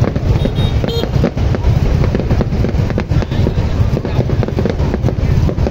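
Fireworks display going off: a dense run of bangs and crackles over a steady low rumble.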